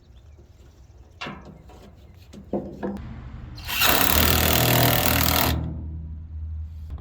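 Impact gun running in one burst of about two seconds, starting about four seconds in, after a few light knocks. A low steady hum runs underneath.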